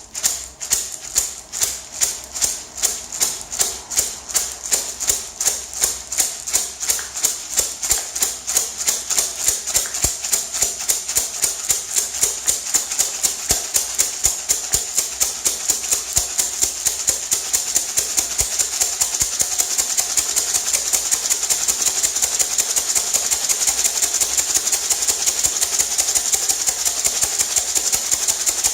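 Handmade gourd maraca shaken in a steady rhythm, each shake a sharp seed rattle. It starts at about two or three shakes a second and speeds up gradually until the shakes run together into an almost continuous rattle.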